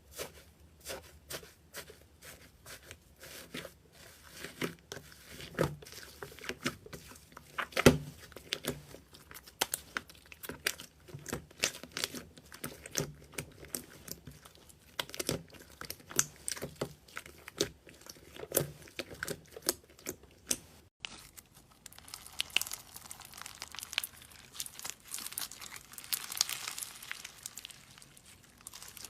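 Slime being squeezed and pressed by hand, giving sharp sticky pops and clicks several times a second, a few of them loud. After a sudden break about two-thirds of the way through, a denser crinkling, crackling sound takes over.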